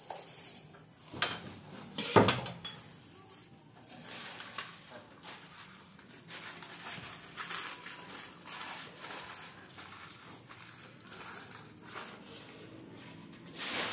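Handling noise from a stack of sack-wrapped clay pots being covered with a black sheet: two sharp knocks about one and two seconds in, the second the loudest, then scattered rustling and scuffing.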